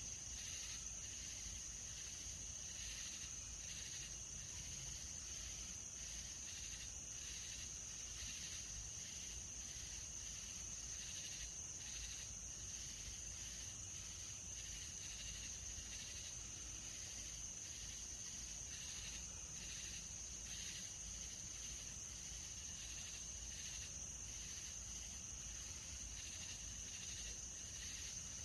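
Nighttime insect chorus: a steady high-pitched trill with repeated pulsing chirps lower down, ongoing throughout.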